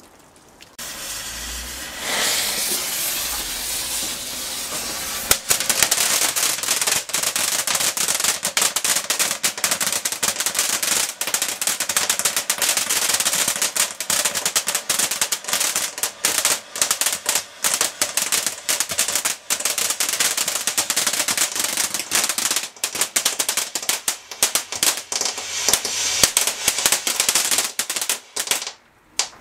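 Dancing Red Devil firework fountains burning. A hiss starts about a second in and grows louder, then from about five seconds in a dense, rapid crackle runs over it. It cuts off sharply just before the end.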